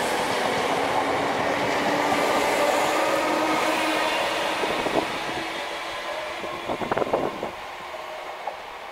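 Electric multiple-unit train running past along the platform: steady wheel and rolling noise that fades as the rear of the train goes by and it draws away, with a quick flurry of sharp clicks about seven seconds in.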